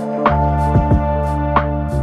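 Background instrumental music: held chords with single notes struck about every half second.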